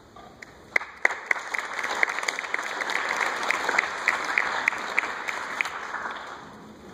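Audience applauding briefly: clapping starts about a second in and dies away near the end, with loud single claps from a clapper close to the microphone standing out.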